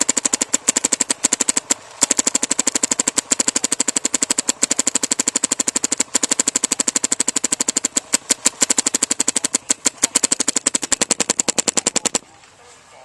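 Bob Long Insight NG electropneumatic paintball marker firing rapid strings of shots in PSP ramping mode. It pauses very briefly twice and stops about twelve seconds in.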